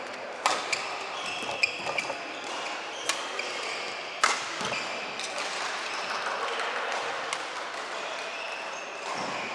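Badminton rackets striking a shuttlecock in a rally: sharp cracks, the loudest about half a second, a second and a half and four seconds in, with short high squeaks of court shoes on the court mat in between.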